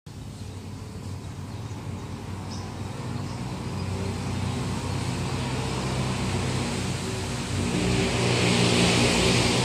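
A motor vehicle's engine humming steadily and growing louder as it approaches, with a rising hiss near the end.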